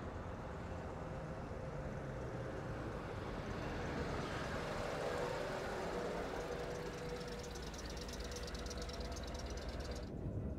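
Vintage coach's engine running steadily as the coach drives along, growing a little louder about halfway through and then easing off.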